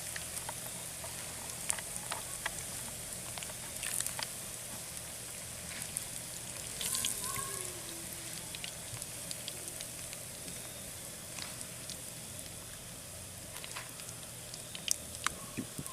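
Battered bluegill frying in hot grease: a steady sizzle with scattered pops and crackles throughout.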